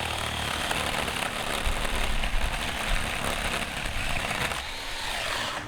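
Ryobi 18-volt 10-inch battery chainsaw running and cutting through wood, stopping abruptly near the end.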